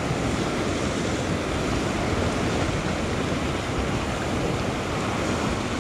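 A steady rush of ocean surf breaking and washing against a sea-rock ledge, with wind buffeting the microphone.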